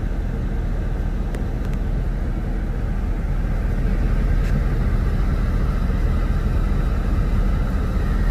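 Car running, heard from inside the cabin: a steady low rumble of engine and road noise.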